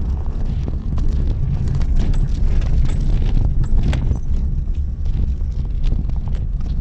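Mitsubishi Pajero Mini driving over a rough, stony forest track: a steady low rumble with irregular clicks and knocks of gravel and stones under the tyres, one sharper knock about four seconds in.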